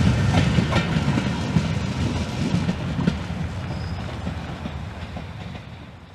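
Train of passenger coaches rolling away over the rail joints, with a low rumble and irregular wheel clicks fading steadily as it recedes.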